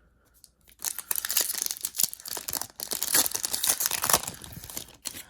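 A trading-card pack wrapper being torn open and crinkled: a dense, crackly ripping that starts about a second in and stops just before the end.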